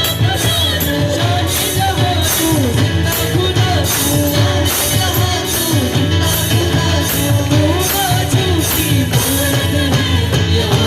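Live worship music with a steady beat of about two strokes a second, jingling tambourine-like percussion and a melody line over a strong bass.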